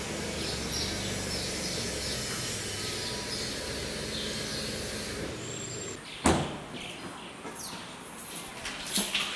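An SUV's engine running as it pulls in and parks, then switched off after about five seconds. A car door slams shut about six seconds in, followed by a few light footsteps and another knock near the end, with birds chirping faintly.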